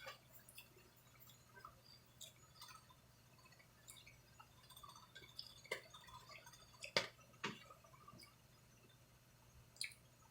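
Faint handling noise: scattered light clicks and taps, the sharpest about seven seconds in, over a low steady hum.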